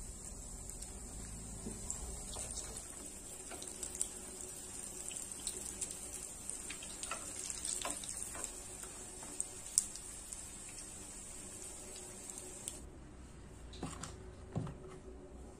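Chicken nuggets sizzling in shallow oil in a small rectangular frying pan, with scattered light clicks of metal tongs turning them. The sizzle cuts off about 13 seconds in, followed by a couple of soft knocks.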